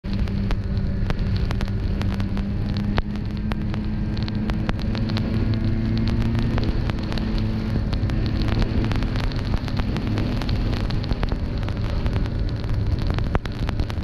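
Snowmobile engine running at a steady pace while riding, with many sharp clicks over its hum.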